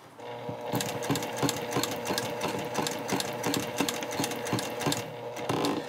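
Electric sewing machine stitching slowly through a thick cork bag panel and strap: a steady motor whine with regular needle strokes, about five a second, stopping just before the end. It is going back over earlier lines of stitching to reinforce where the handle attaches.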